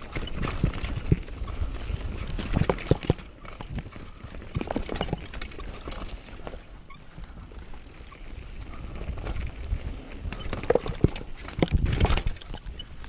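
Mountain bike rolling over rough dirt and rock singletrack: irregular knocks and rattles from the bike over bumps, over a low rumble of tyres and wind.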